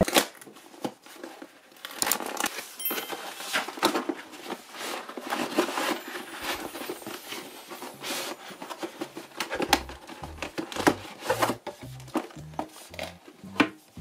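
Cardboard mailer being torn open and handled: crinkling, tearing and scraping of corrugated card as a boxed amplifier slides out. About ten seconds in, background music with a steady, stepping bass line comes in under the handling noise.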